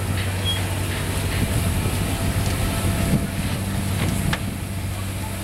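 1912 Waterous 12-ton road roller's single-expansion twin-cylinder steam engine running steadily, a low even hum of working machinery with a sharp click about four seconds in.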